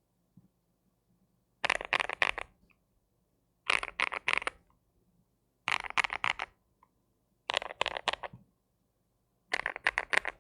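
Cidoo V75 mechanical keyboard with CIDOO Matte linear switches and PBT Cherry-profile keycaps, typed on in five short bursts of rapid keystrokes about two seconds apart.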